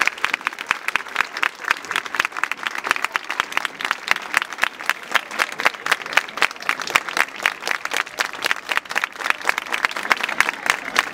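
Audience applauding, many hands clapping at a steady level, at the end of a band's piece.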